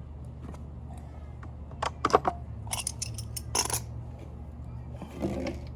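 Metal hand tools clinking and scraping: several sharp clicks and clinks from about two seconds in, as a socket is picked out and handled, over a steady low hum.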